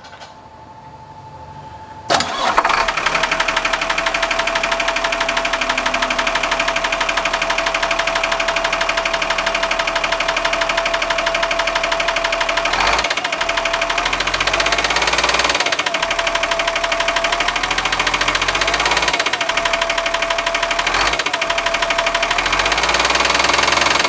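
Cummins diesel engine starting about two seconds in, then running with a steady, rhythmic knock. The knock remains after debris jammed behind the harmonic balancer was removed, and its cause is unknown; it doesn't sound normal.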